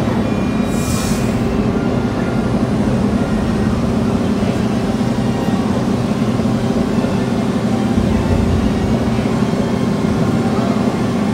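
Steady loud low rumble inside the Indiana Jones Adventure dark ride, with a short hiss about a second in.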